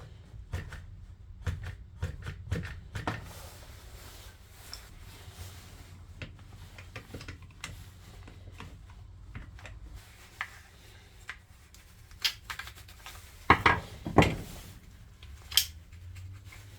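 Irregular clicks, taps and rubbing of small plastic and metal parts being handled while an angle grinder is taken apart for a carbon brush change, with a few sharper, louder knocks about fourteen seconds in.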